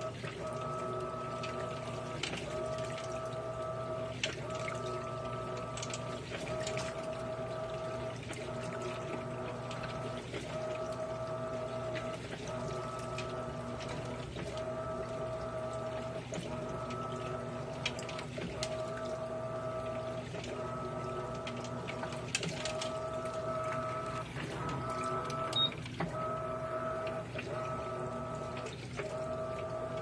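Electrolux LAI17 17 kg top-load washing machine agitating a load of jeans and shorts in water: a steady motor whine that breaks off briefly and restarts about every second and a half as the wash plate reverses direction, with water sloshing and splashing in the drum.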